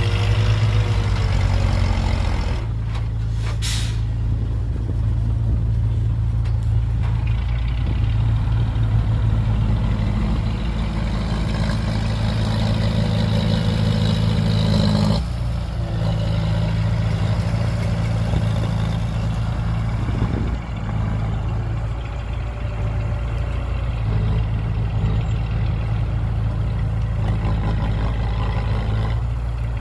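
Heavy equipment diesel engines of a dump truck and bulldozer running steadily. The engine note shifts about two and a half seconds in and again about fifteen seconds in. A short hiss comes about four seconds in.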